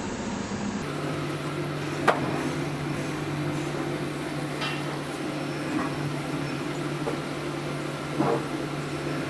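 Screw press juicer running steadily while pressing celery: its electric motor and gear reduction box give a low, even hum. A few short knocks sound over it, the loudest about two seconds in.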